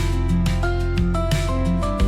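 Background music: held synth-like notes over a sustained bass, with a steady beat.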